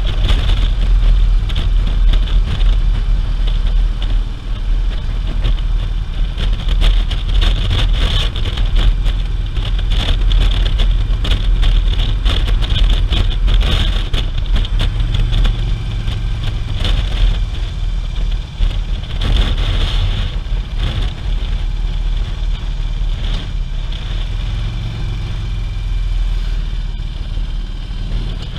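Touring motorcycle's engine running at road speed, recorded from a camera on the bike, with wind buffeting the microphone throughout. The sound eases off a little near the end as the bike slows.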